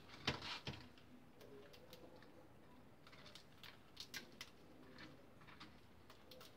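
Faint, irregular small clicks and ticks from cockatiels on a cage floor, with two louder clicks in the first second and a short run of clicks around four seconds in.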